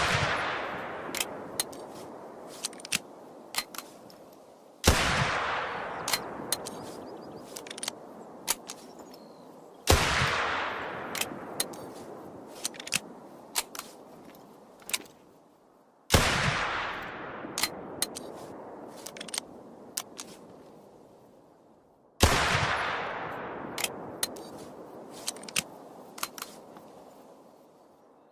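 Shots from a .45-70 Jernberg Superior single-shot pistol, four in all, one every five to six seconds. Each has a long echoing tail that fades over several seconds, and small sharp clicks and clinks fall between the shots.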